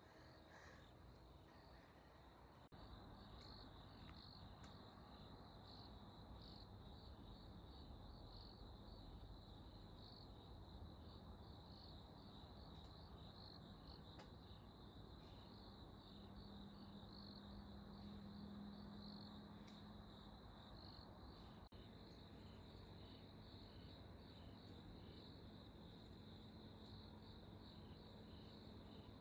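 Insects chirping faintly, a steady run of repeated high chirps.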